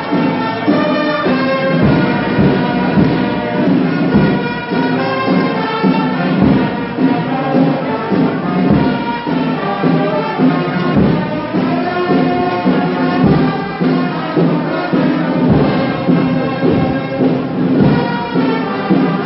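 A brass band playing, with held brass notes over recurring drum beats.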